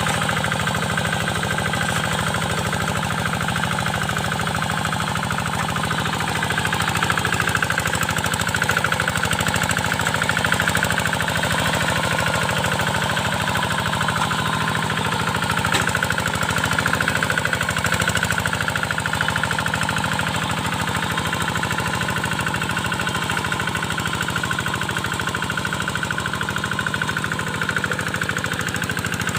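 Single-cylinder Kubota diesel engine of a hand tractor running steadily with a fast, even chugging beat, working a waterlogged rice field.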